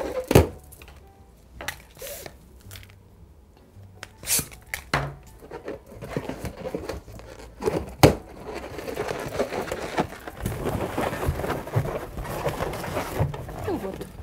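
A latex modelling balloon is twisted and handled, making rubbing, squeaking and crinkling sounds. There are a few sharp clicks in the first half, then a long stretch of dense squeaky rubbing as the balloon is twisted into small bubbles and fitted into place.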